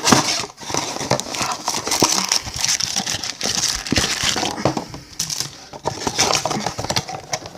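A trading-card blaster box being opened by hand and its wrapped card packs handled: steady crinkling of wrappers and cardboard, with many small clicks and taps.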